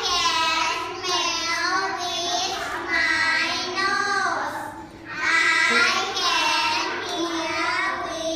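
A small group of young girls singing together in English, an action song about the senses, in phrases with a short break about halfway through.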